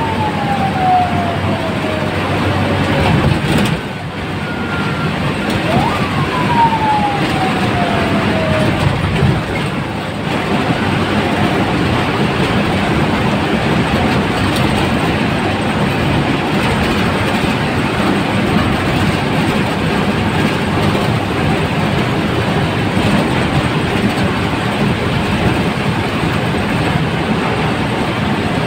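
Steady engine and road noise of a moving bus heard from inside the driver's cab. Twice in the first ten seconds a long falling tone sounds over it, each lasting about three seconds.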